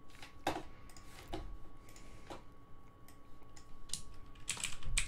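Computer keyboard keystrokes: a few single key clicks spaced about a second apart, then a quick run of several near the end.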